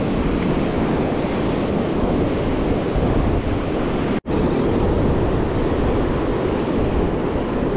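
Ocean surf breaking on a sandy beach, mixed with wind buffeting the microphone as a steady rushing noise. The sound drops out for an instant about four seconds in.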